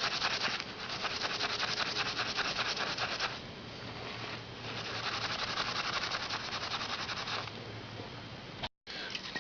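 Rapid back-and-forth scrubbing on an engine valve, cleaning off the carbon left by oil that leaked past worn valve stem seals. It comes in two bouts of fast strokes, the first more vigorous, with softer rubbing between them.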